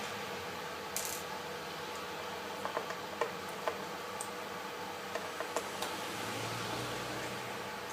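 Scattered small clicks and ticks of a screwdriver working out the last tiny screws from a MacBook Pro display hinge, in a cluster about a third of the way in and again past the middle, over a steady quiet hum.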